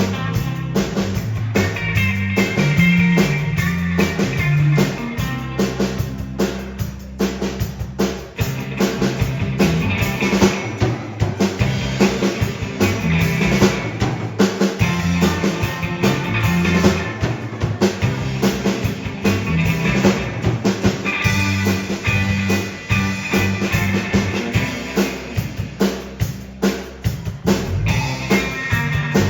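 A band playing a rock song on drum kit and guitar, with a steady beat.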